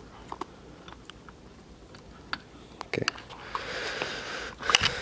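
Scattered light clicks, then from about three and a half seconds in a rustling hiss of clothing and camera handling as the camera brushes a fur-trimmed parka hood, with a cluster of sharp clicks near the end.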